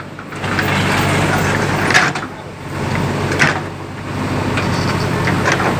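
Heavy diesel machinery engine running steadily, its level dipping briefly twice, with two short sharp sounds about two and three and a half seconds in.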